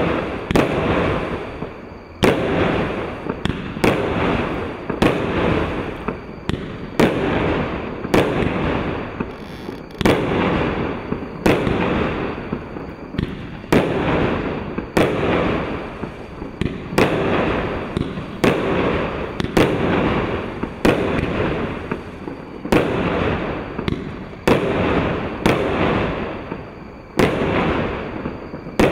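A CE-approved 30 mm, 25-shot consumer firework cake firing its shells in sequence, about one a second: each shot is a sharp bang followed by a fading rush of noise before the next.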